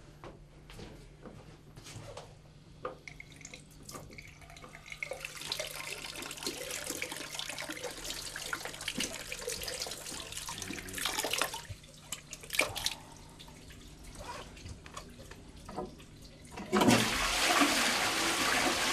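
Water running, then a toilet flushing with a loud rush of water that starts suddenly near the end.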